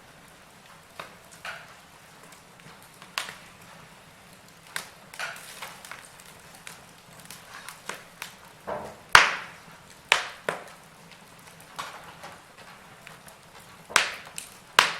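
Wood fire crackling: burning logs giving off irregular sharp pops and snaps over a faint steady hiss, with a few louder pops about nine, ten and fourteen seconds in.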